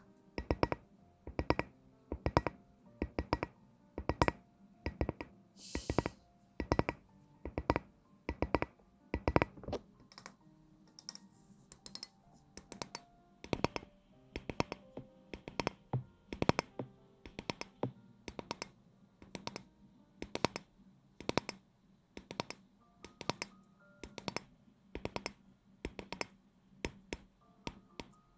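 A long run of sharp, close-up taps or clicks, two or three a second in uneven clusters, over faint background music.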